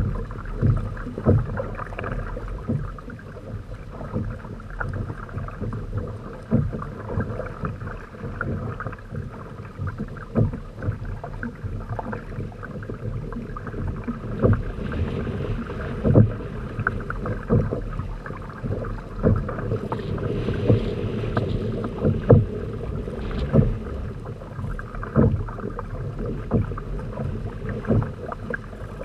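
Lake chop slapping and splashing against the rotomolded polyethylene hulls of a Hobie Tandem Island trimaran under sail: a steady wash of water with irregular thumps every second or so.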